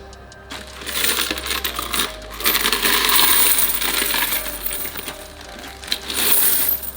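A mass of coins clattering and jingling as they pour and shift, in a long spell that is loudest about three seconds in, then a second surge near the end.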